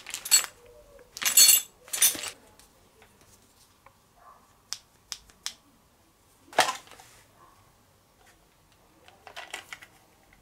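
Clear plastic bag of small hardware crinkling in the hands in a few short bursts, then scattered light clicks and knocks as parts are handled and lifted out of a cardboard box, with one louder rustle about six and a half seconds in.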